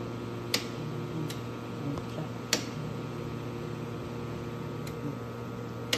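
Steady electrical hum from the welding machine's equipment, with about five sharp, irregularly spaced clicks from buttons being pressed on its control panel to move the work table.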